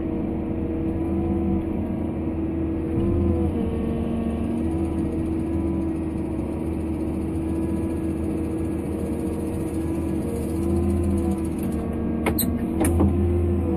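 Volvo EW160 wheeled excavator's diesel engine and hydraulics running steadily, heard from inside the cab, with a held whine that dips briefly in pitch a couple of times as the boom moves. Two sharp clicks come about a second before the end.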